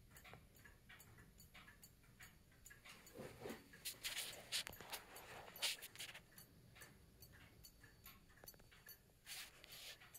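Steady, faint ticking of a French clock's recoil escapement, whose pallet faces have just had their wear grooves polished out. Louder rustling and handling noise comes in between about three and six seconds in and again near the end.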